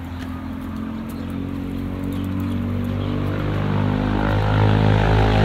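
An engine running with a steady, even drone that grows gradually louder as it comes closer, loudest near the end.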